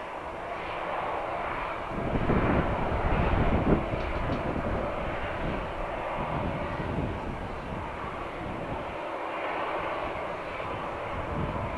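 Jet engines of an Airbus A321 airliner running at low power as it taxis: a steady rushing engine noise that swells for a couple of seconds about two seconds in.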